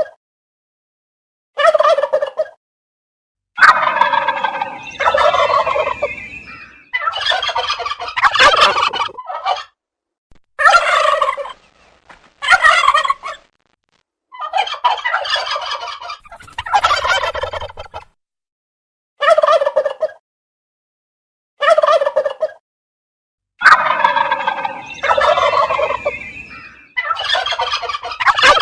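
Turkey gobbling: a long series of rattling gobbles, each a second or a few seconds long, with dead-silent gaps between them.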